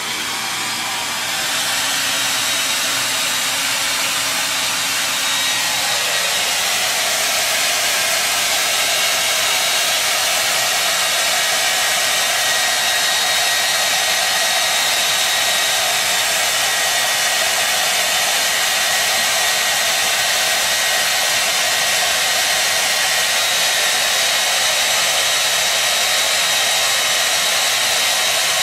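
Handheld hair dryer running steadily: an even blowing hiss with a faint whine, coming up to full speed in the first second or two, its tone shifting slightly about six seconds in.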